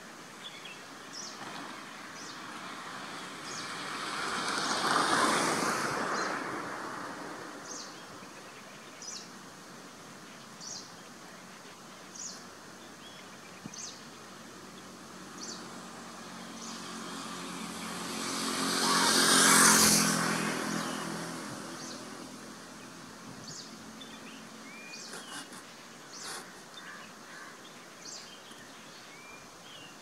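Two motor vehicles passing by, each swelling up and fading away, loudest about five seconds in and about twenty seconds in, the second with an engine hum. Between them a short high chip repeats about every second and a half, and small birds twitter near the end.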